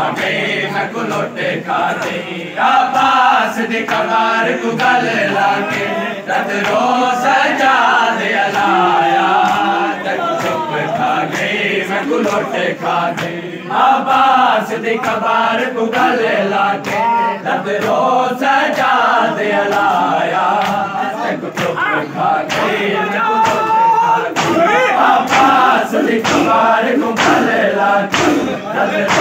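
A crowd of men chanting a Muharram mourning lament together, with sharp slaps of hands beating bare chests (matam) in time. The slaps grow denser in the second half.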